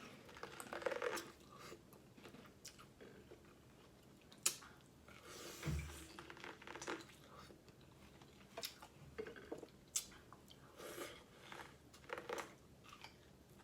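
Close-up biting and chewing of corn on the cob: irregular crunches and chewing sounds, with one sharper crunch about four and a half seconds in.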